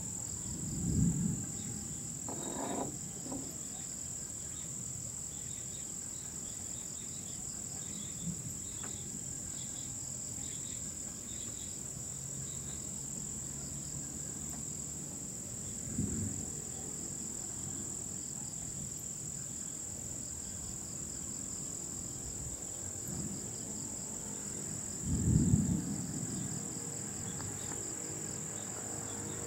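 A steady high-pitched drone of night insects, with a faster pulsing trill just beneath it. Three brief low rumbles break in, about a second in, about halfway through, and the loudest near the end.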